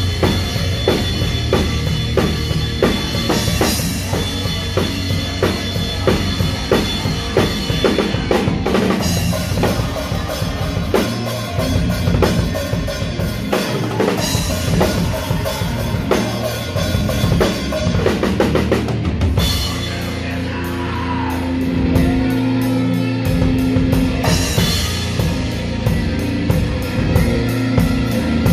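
Live rock band playing, heard from right beside the drum kit: kick drum, snare and cymbals drive a steady beat over bass guitar. About 20 s in the drumming drops back for a few seconds under held bass notes, then the full kit with crashing cymbals comes back in.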